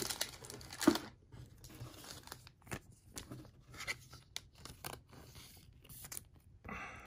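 Thin plastic trading-card sleeve crinkling and rustling as a card is slid into it, with irregular small clicks and scrapes of card handling.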